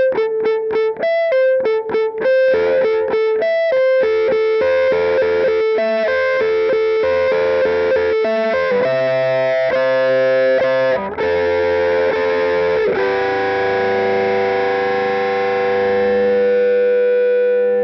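Heavy music: an electric guitar through distortion and effects plays a repeating picked figure of single notes. About nine seconds in it moves to fuller sustained chords, and near the end a chord is left ringing.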